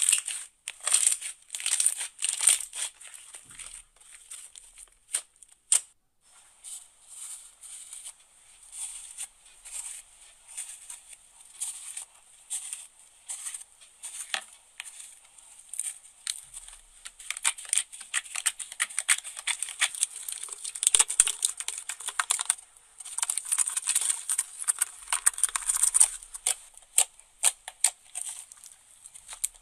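Slime being squeezed, pressed and poked by hand: a run of small sticky crackles and pops, sparse at first and densest in the second half.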